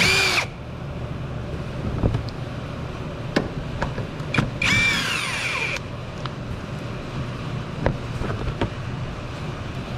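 A small cordless power tool with a 10 mm socket spins out the two bolts holding a plastic wheel-well cover. There is a short motor whine right at the start and another, about a second long, about five seconds in, with light clicks and knocks of the tool and cover in between over a steady low hum.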